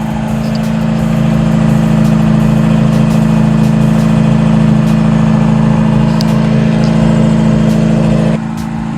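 1991 Toyota pickup engine idling steadily at a high idle, not yet turned down. The level drops a step near the end.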